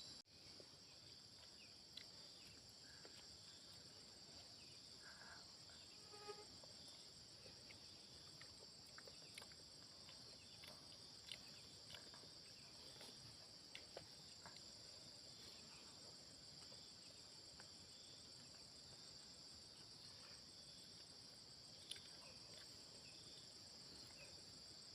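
Faint, steady high-pitched insect chorus, crickets or similar, with a few soft clicks scattered through it.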